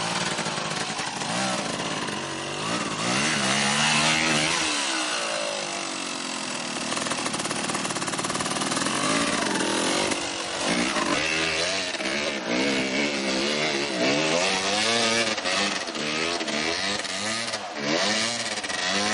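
Yamaha YZ250 two-stroke dirt bike engine revving hard and repeatedly, its pitch climbing and dropping with the throttle in quick swells of about a second each in the second half, as it pulls through mud and onto a steep hill climb.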